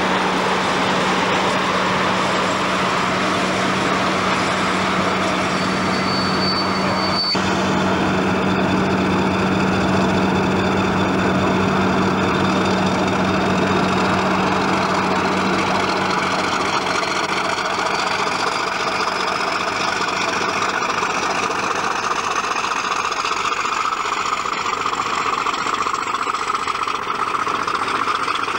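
British Rail Class 50 diesel locomotive running past, its English Electric 16-cylinder engine giving a steady low drone, with a thin high whine that climbs slowly in pitch through the second half. A single sharp click about seven seconds in.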